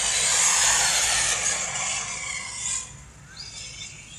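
1/10-scale HSP off-road RC car driving fast across concrete, its motor and tyres giving a loud, high, rasping run that drops away sharply a little before three seconds in as the car moves off.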